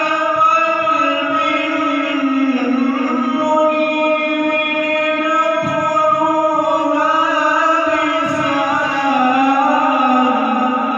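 A male qari reciting the Quran in the melodic tajweed style, into a microphone. He holds long notes that slowly glide up and down in pitch, in the maqam manner.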